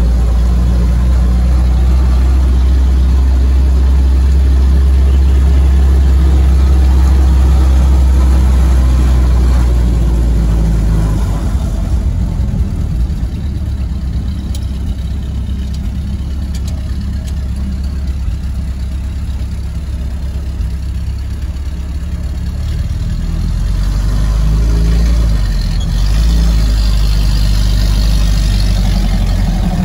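1944 Willys jeep's four-cylinder flathead engine running on the road, heard from inside the cab as a steady low drone. It gets quieter about twelve seconds in and louder again near the end, where a rising whine starts.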